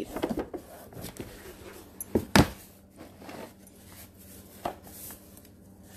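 A cookbook being handled: scattered light knocks and rustles, with one sharper knock about two and a half seconds in.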